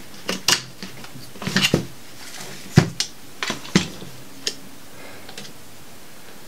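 AR-15 parts clicking and knocking as the takedown pin is popped and the upper and lower receivers are pulled apart. About a dozen sharp metal clicks come over the first four and a half seconds, the loudest about three seconds in.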